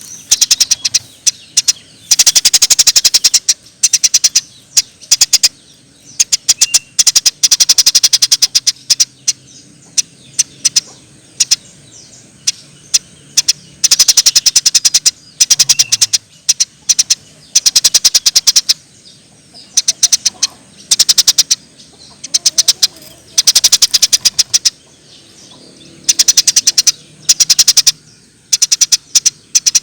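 Eurasian tree sparrows chirping excitedly, in fast rattling trains of sharp, high chirps that come in bursts of a second or two, one after another.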